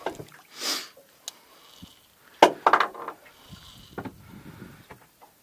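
Scattered knocks and clicks of a fishing rod and reel being handled on a boat, the loudest knock about two and a half seconds in followed by a quick cluster of smaller ones, with a short whoosh near the start.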